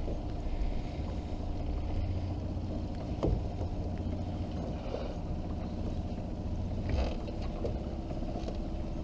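Steady low rumble on a small open boat, with one sharp knock about three seconds in.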